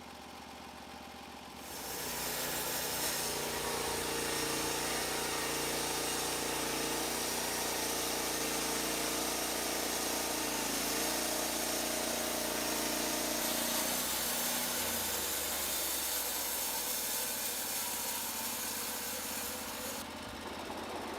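Portable bandsaw mill's engine running, with the band blade cutting through a log from about two seconds in until near the end, then dropping back to the engine alone.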